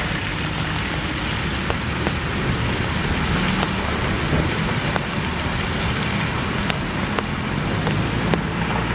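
Steady hiss of heavy rain on a waterlogged road, with a bus's diesel engine humming as it drives away over the potholes. A few sharp ticks stand out here and there.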